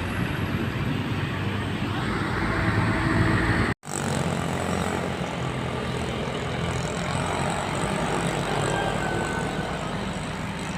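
Tour bus engine running with steady road-traffic noise around it; the sound drops out for an instant about four seconds in.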